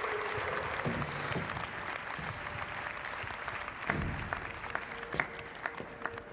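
A group of people applauding, the clapping thinning out to a few separate claps near the end.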